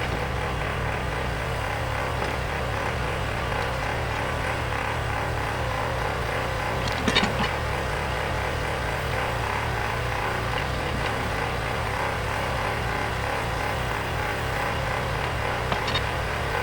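Bobcat skid-steer loader's engine running steadily under work, with a short metallic clatter about seven seconds in and another near the end.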